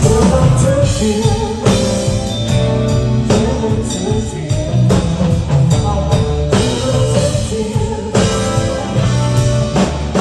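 Live rock band playing at full volume: heavy bass line, drum kit hits and guitar, with a sung vocal line over them.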